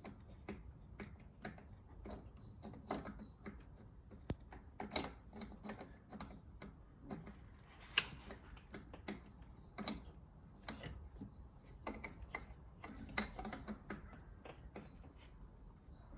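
Irregular clicks and light knocks of a metal turbo inlet pipe being pushed and twisted against its fitting on the turbocharger, which is too tight to seat. The sharpest knock comes about eight seconds in.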